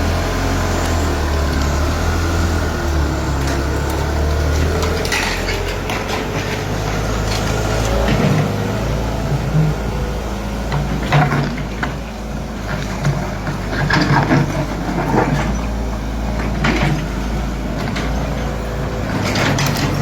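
Excavator's diesel engine running steadily under load, its note shifting as the machine works, with knocks and clatter at uneven intervals from about five seconds in.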